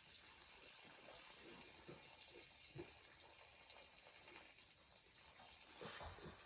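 Near silence: faint steady hiss with a few soft, scattered rustles.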